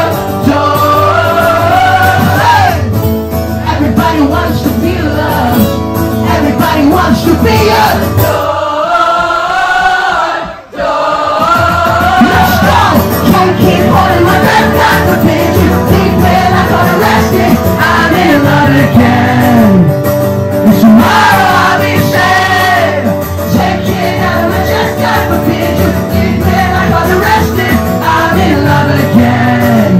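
Live acoustic rock performance: singing over acoustic guitar, with the music dropping out briefly about ten seconds in.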